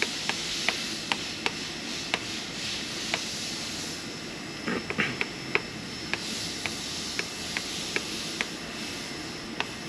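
A stylus tapping keys on a touchscreen, a quick uneven run of short, sharp taps, about two a second, over a steady shop hiss.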